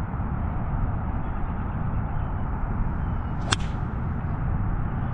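A golf iron striking a ball off the grass: one sharp click about three and a half seconds in, over a steady low rumble.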